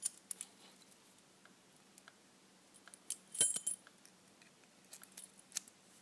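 Light metallic clinks and jingles of a brass padlock and its keys being handled, with a short burst of jingling about three seconds in and a few small clicks near the end.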